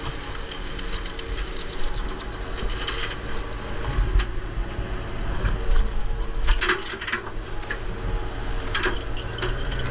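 Steady low rumble of a fishing boat's engine and deck machinery, with sharp metal clanks and rattles breaking through several times.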